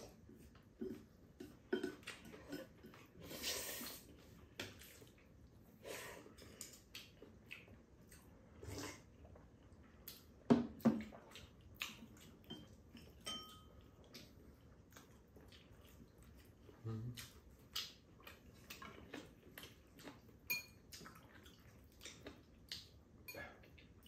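Eating sounds at the table: chopsticks clicking and scraping against ceramic bowls and a frying pan as spaghetti is picked up, with noodles slurped now and then. The longest slurp comes a few seconds in.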